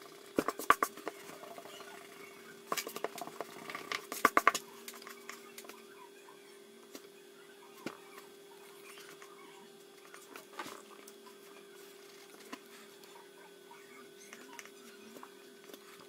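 Pencil scratching on paper, with several sharp taps and knocks in the first few seconds as hands and paper move on the desk, over a faint steady hum.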